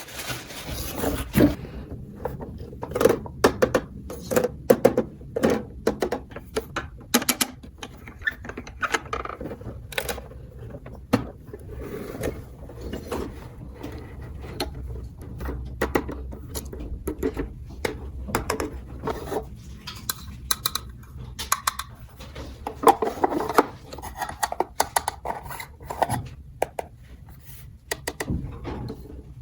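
Plastic toy dollhouse parts being handled and fitted together: a run of irregular clicks, taps and light knocks, with some rustling between them.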